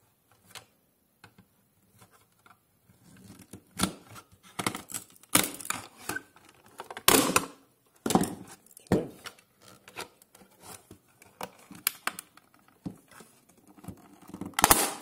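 Plastic case of a Linksys E1000 router being pried apart with a screwdriver: irregular clicks, scrapes and cracks of the plastic shell, starting a few seconds in, with the loudest crack about seven seconds in and another near the end.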